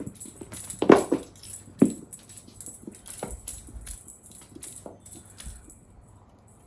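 Cats playing and pouncing on a toy: an irregular run of light taps, knocks and faint rattles, with two louder thuds about one and two seconds in.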